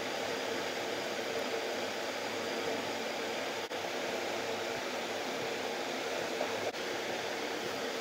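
Steady background hiss with a faint hum, like a fan or air conditioner running, broken by two very brief dips in level.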